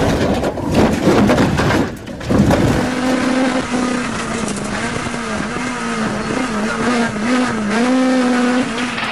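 Rally car crash noise, a harsh clattering stretch with many knocks, for about the first three seconds. After a cut, a rally car's engine is heard from inside the cabin, running hard with its revs rising and falling as it drives.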